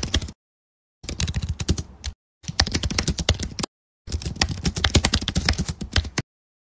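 Computer keyboard typing sound effect: rapid key clicks in four runs of about one to two seconds each, with short pauses between them, stopping about six seconds in.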